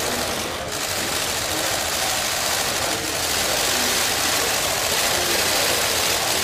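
Sustained applause from a room full of people, with the rapid clicking of many camera shutters firing continuously.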